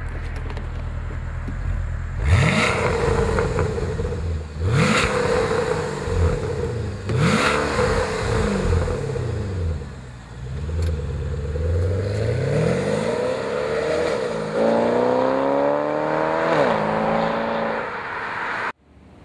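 Porsche Panamera Turbo's twin-turbo V8 idling, then blipped three times in quick succession, revved once more, and held at higher revs for about two seconds before dropping back. The exhaust note comes through Fabspeed downpipes with 200-cell catalytic converters, an X-pipe resonator delete and the stock valved rear mufflers. The sound cuts off suddenly near the end.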